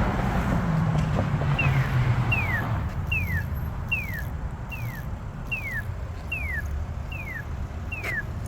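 Polara iNS accessible pedestrian signal sounding its walk indication: a short descending chirp repeated about every 0.8 seconds, nine in all, starting about a second and a half in, over traffic rumble that fades away.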